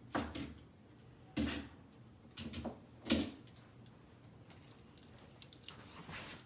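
Die-cast toy cars and track being handled: four short clicks and knocks in the first three seconds or so, then only faint scattered ticks.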